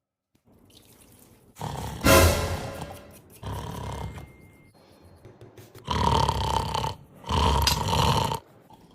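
A person snoring: about four long snores of roughly a second each with pauses between, the first the loudest.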